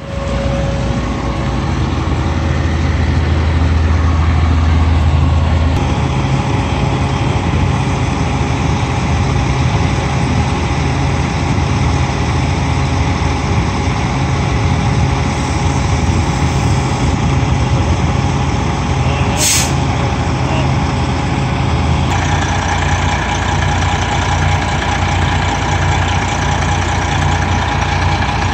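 Fire trucks' diesel engines running steadily at the scene: a continuous deep hum with a steady higher tone over it. A brief sharp hiss cuts in about two-thirds of the way through.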